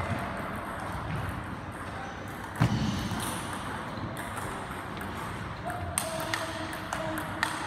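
Table tennis ball clicking off the bats and the table in a rally, echoing in a large sports hall, with one heavier thud about two and a half seconds in and a quick run of clicks near the end.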